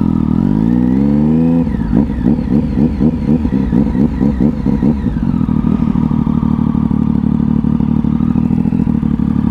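Triumph 675 inline-three motorcycle engine under way: it pulls up through the revs, the throttle comes off about a second and a half in, the note rises and falls quickly for a few seconds, then it settles to a steady run.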